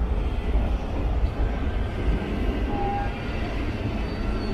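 ČD class 193 Vectron electric locomotive with its passenger train moving slowly alongside the platform: a steady low rumble with a few faint high tones.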